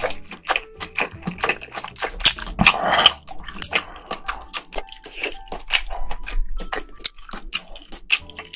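Close-miked wet chewing of octopus and ramen noodles: rapid, irregular smacking and clicking mouth sounds, several a second, with a louder, denser stretch about two to three seconds in.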